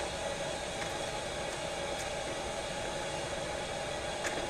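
Steady hiss and hum of an appliance running in a motorhome kitchen, with a light click about two seconds in and another near the end.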